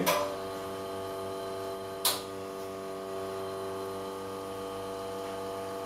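Carimali Kicco two-group espresso machine's pump humming steadily as it runs a pre-programmed volumetric extraction, with a single sharp click about two seconds in.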